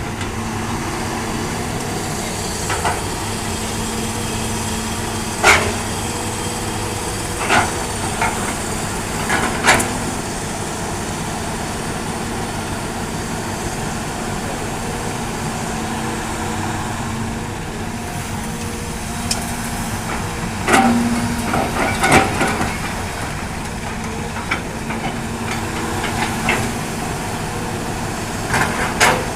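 Hitachi hydraulic excavator's diesel engine running steadily under load, with a handful of sharp metallic knocks and clanks from the bucket and machinery as it digs and loads a dump truck, several coming together about two-thirds of the way through.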